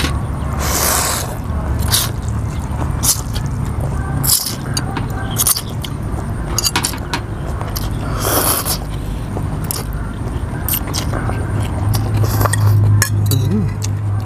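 People eating rice noodles with metal spoons from glass bowls: noodles slurped loudly about a second in and again around eight seconds in, with chewing, mouth sounds and many short clicks of spoons against glass in between. A steady low hum runs underneath.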